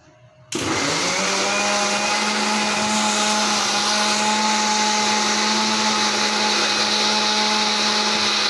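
Electric kitchen mixer grinder switched on about half a second in: its motor spins up quickly with a brief rise in pitch, then runs steadily at full speed while the steel jar grinds chopped bottle gourd with water into pulp.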